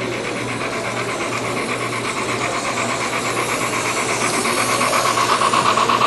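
HO scale model steam locomotive and its freight cars running along the track: a fast, even clicking and whirring that grows louder as the train comes closer, over a steady low hum.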